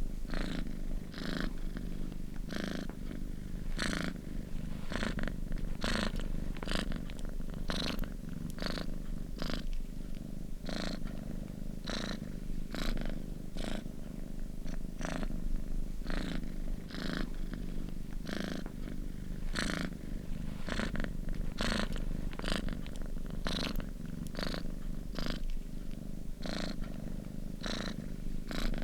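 Domestic cat purring steadily up close, a low continuous rumble that swells with each breath in a regular rhythm, roughly three breaths every two seconds.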